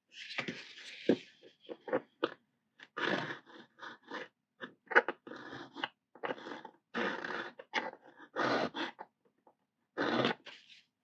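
Hand file rasping over the 3D-printed plastic body of an HO scale hopper wagon in short, irregular strokes, with a few sharp clicks early on. It is cleaning up the rough printed surface near the coupler.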